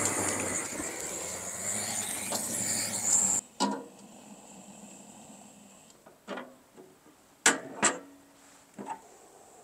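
A steady hiss that cuts off suddenly about three seconds in, then a few sharp metal clinks and knocks as a stainless-steel wood stove is tended while the fire is being lit.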